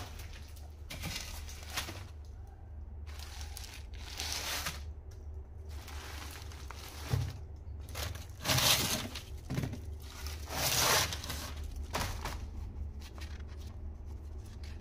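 Old, dusty paper files and loose sheets being lifted and turned over by hand, rustling and crinkling in irregular bursts, loudest a little past the middle.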